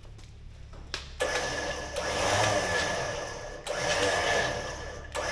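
Electric vehicle winch motor running under switch control, a steady motor whine with a high tone. It starts sharply after a click about a second in and runs in three stretches with brief stops between them.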